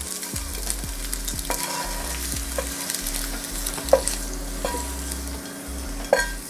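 Spatula scraping and pushing cooked pasta shells out of a frying pan onto a plate, with a few sharp knocks of the spatula against the pan, the loudest about four and six seconds in.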